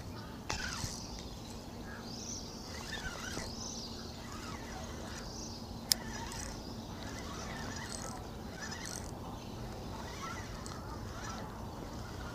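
Birds calling and chirping in short, wavering calls, with a single sharp click about six seconds in.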